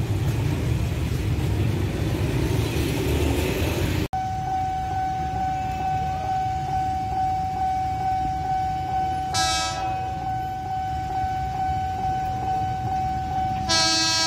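Level-crossing warning signal sounding a steady, rapidly repeating electronic ding as an ex-JR 205 series KRL electric commuter train approaches. The train sounds its horn twice, a short blast about halfway through and a second one near the end. Before the signal starts, the first few seconds hold a steady street-traffic rumble.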